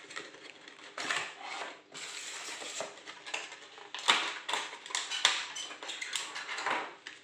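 Cardboard box flaps and a thin clear plastic blister pack being handled and pried open, giving irregular crinkling and crackling with sharp plastic cracks, the loudest about four seconds in.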